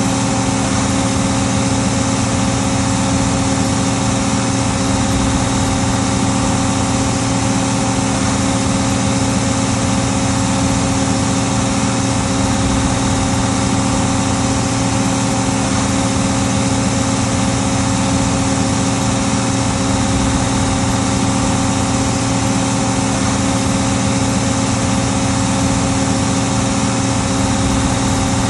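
Case 1570 tractor's diesel engine running with a steady, unchanging drone.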